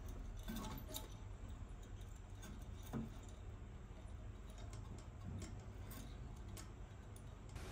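A hand stirring the water inside a toilet cistern and rubbing its bottom: faint sloshing with scattered light clicks and taps.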